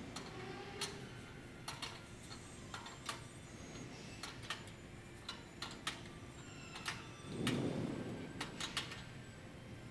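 A metal spanner clicking and clinking on the hub nut and steel cross-braces of a stainless-steel turbine roof ventilator as the nut is tightened: irregular sharp ticks, with a brief low rumble about two-thirds of the way through.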